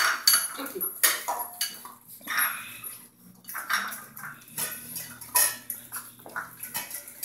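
Stainless steel dog food bowls clinking and scraping on a tile floor as a group of small dogs eat from them, in irregular metallic clinks.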